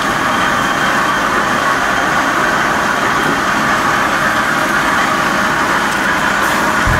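Loud, steady rushing noise of tofu-factory machinery, with no clear beat, starting abruptly.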